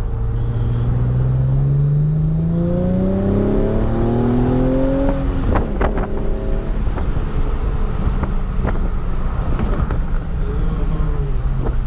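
Hyundai Genesis Coupe's 3.8-litre V6 through a CNT v3 cat-back exhaust with the secondary cats deleted by test pipes, accelerating with a rising engine note for about five seconds. A few sharp clicks follow, then the engine settles to a steady, lower note.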